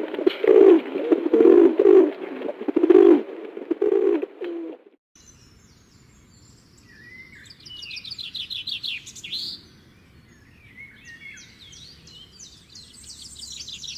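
Dove cooing in a run of low, repeated coos that stop abruptly about five seconds in. A small songbird then chirps and sings quick high trills, in two bursts.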